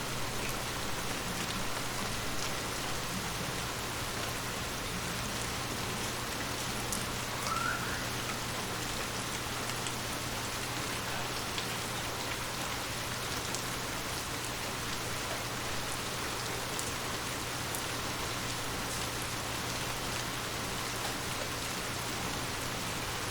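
Steady rain falling, an even hiss with scattered drop ticks and a steady low hum underneath. A brief chirp comes about seven seconds in.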